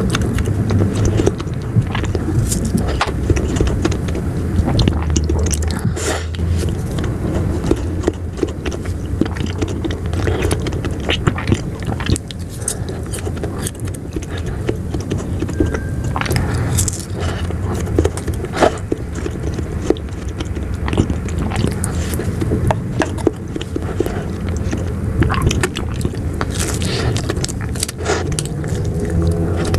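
Close-up eating of ice cream: repeated biting and chewing with many short, sharp mouth clicks, over a steady low rumble.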